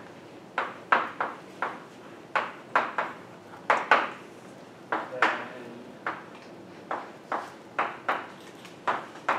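Chalk tapping and clicking against a blackboard as someone writes: an irregular string of sharp taps, about two a second.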